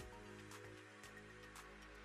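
Quiet background music with sustained notes.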